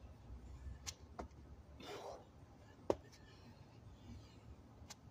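A man breathing out hard once, about two seconds in, winded from burpees. Three sharp clicks about two seconds apart and a low rumble.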